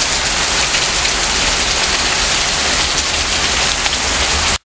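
Heavy rain pouring down in a loud, steady hiss, cutting off suddenly near the end.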